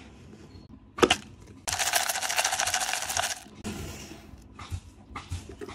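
A metal lid being opened on a plastic candy jar: a sharp click about a second in, then about a second and a half of loud scraping rasp as the lid comes off. Quieter handling scrapes and light clicks follow.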